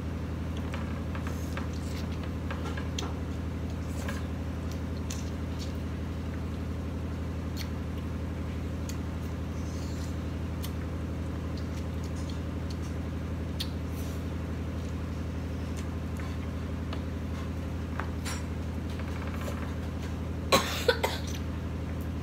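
Faint mouth and chewing sounds while corn on the cob is eaten, over a steady low hum. Near the end, a short fit of about three coughs.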